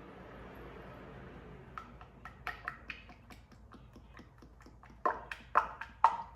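Motor oil being poured from a plastic bottle into the engine: a soft pouring hiss, then a run of irregular clicking pops, the loudest three close together near the end.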